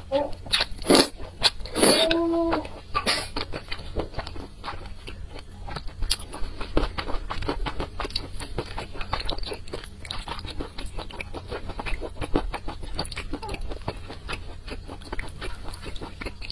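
Close-miked eating of wide flat noodles and sliced meat in sauce. There are a few loud slurps in the first three seconds, then steady wet chewing with many small mouth clicks.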